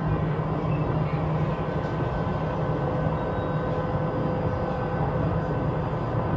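Tram running along the line, heard from inside the passenger cabin: a steady low rumble of wheels on rails, with a few faint steady tones above it.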